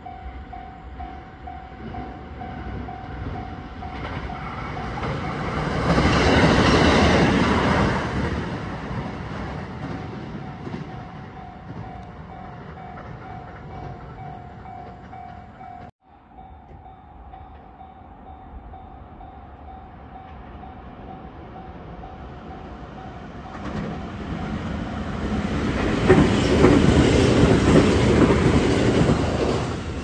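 Level-crossing warning bell ringing steadily as a 521-series electric train passes, its wheel and track noise swelling and fading about six to nine seconds in. After a brief break another train approaches and passes near the end, its rumble and clickety-clack building from about twenty-four seconds in.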